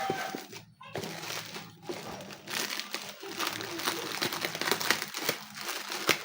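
Packaging being handled and unwrapped: plastic or paper crinkling and rustling in irregular bursts.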